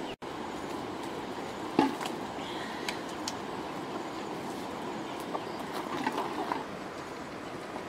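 Steady low rushing background noise, with one sharp knock about two seconds in, a few lighter clicks, and hens clucking faintly around six seconds in.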